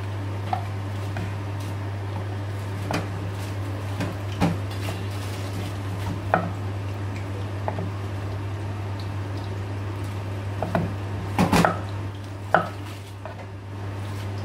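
Kitchen knife cutting cucumber on a wooden chopping board: scattered knocks of the blade on the board a second or more apart, with a quick cluster about eleven seconds in. A steady low hum runs underneath.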